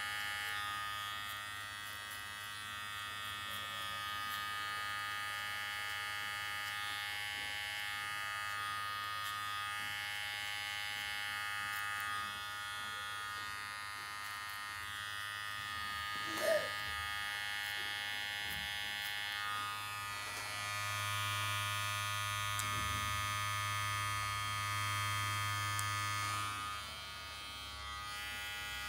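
Electric hair clipper buzzing steadily as it cuts a fade. Its low hum grows stronger for a few seconds past the middle, and there is one brief short sound a little past halfway.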